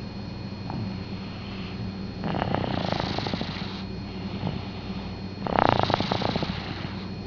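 A child snoring in deep sleep: two long, fluttering, rattling snores, one starting about two seconds in and another about five and a half seconds in.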